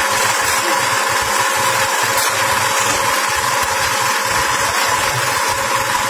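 Small engine of a drum concrete mixer running steadily, a constant mechanical drone with a fast, even low pulse.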